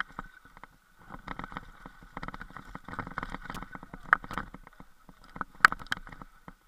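Mountain bike rattling and clattering over a rough, snowy, rocky trail, heard from a camera riding with the bike, with irregular knocks from the frame and wheels. A brief lull comes about a second in, and the sharpest knocks come about four and five and a half seconds in.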